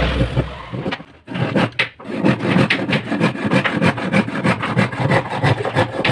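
Hand saw cutting through a small wooden tablespoon blank in quick back-and-forth strokes, about four a second, with a short pause a second or so in.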